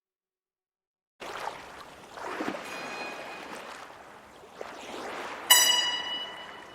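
After about a second of silence a rushing, water-like noise comes in and swells gently. About five and a half seconds in a single struck note rings out, the loudest sound here, and slowly fades.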